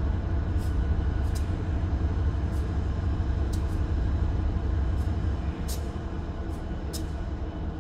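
Diesel locomotive engine idling: a steady low rumble that eases slightly about five and a half seconds in, with a few faint high ticks.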